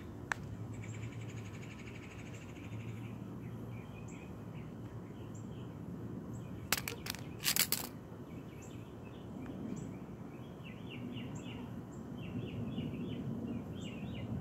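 Birds chirping in the background, with a single sharp click just after the start and a short cluster of sharp clicks and scrapes about halfway through, from a metal tool being forced into a lithium-ion battery's casing.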